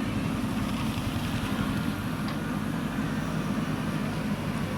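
Diesel engine of a JCB backhoe loader running steadily at a constant speed, with a faint tick about two seconds in.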